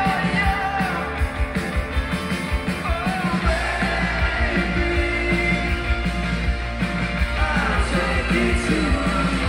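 Live rock band playing through a venue PA: electric guitars, bass and a steady drum beat under a sung vocal. The low end gets heavier about three and a half seconds in.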